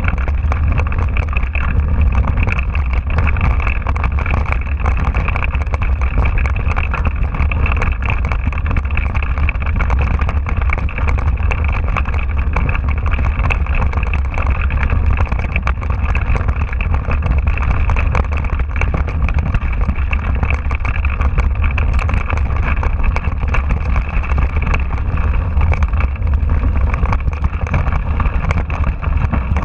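Mountain bike riding over a rough dirt trail, picked up by a handlebar-mounted camera: a steady deep wind rumble on the microphone with constant rattling and clicking from the bike and tyres over stones.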